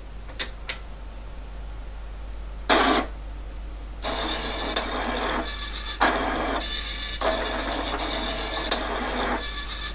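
HP9862A X-Y plotter being switched on: two clicks of the line switch, a short burst of noise about three seconds in, then the servo-driven pen carriage arm running, a continuous mechanical whirr with uneven pulses.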